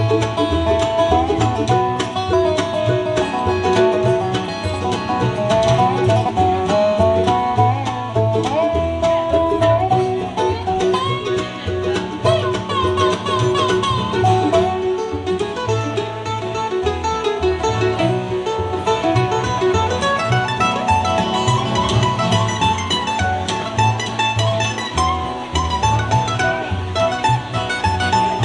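Bluegrass band playing an instrumental break between verses: fast banjo and guitar picking over a steady, pulsing low bass beat.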